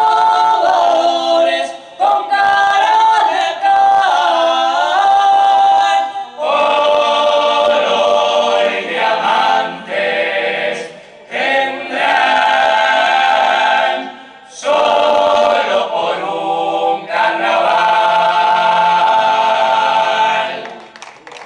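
Uruguayan murga chorus of mixed male and female voices singing a cappella in close harmony: the clarinada, the murga's unaccompanied opening song. It sings long held chords in phrases with short breaks, and the last phrase ends about a second before the end.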